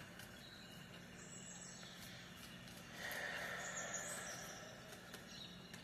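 Faint bird chirps over a low steady hum, with a soft rustling hiss swelling for a second or so about three seconds in.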